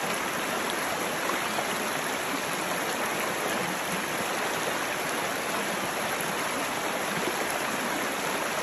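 Shallow rocky river flowing over stones in small riffles: a steady rush of running water.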